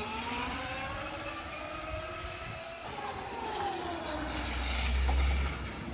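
Razor MX350 electric motorcycle's motor whining as it rides, the whine rising steadily in pitch for about three seconds, then falling away. A low rumble rises near the end.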